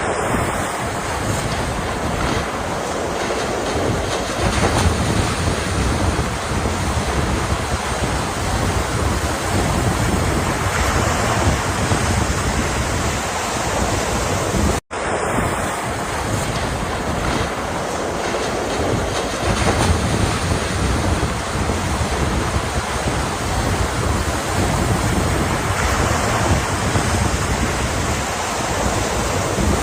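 Ocean surf washing continuously, a dense steady rush of breaking and receding water with no distinct single crashes. A brief cut to silence about halfway through, after which the same stretch of surf repeats.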